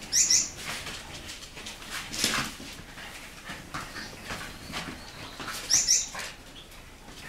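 Small dogs playing at a pop-up fabric puppy pen, with two short bursts of high-pitched squeaking: one right at the start and one about six seconds in.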